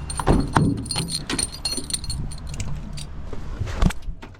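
A ring of keys jangling, with scattered clicks and knocks among them.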